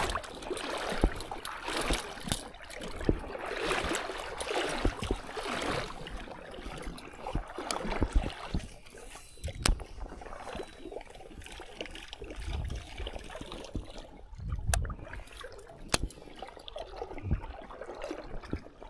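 Shallow water sloshing and trickling around a wading angler, loudest for the first few seconds and then quieter, with scattered sharp clicks throughout.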